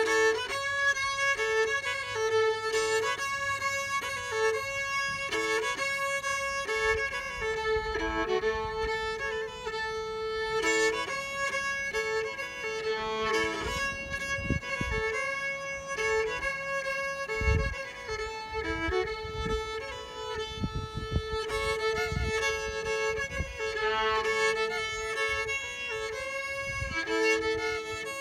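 An old-time fiddle plays a tune, the bowed melody moving against a held drone note that keeps coming back. A few low thumps fall in the second half.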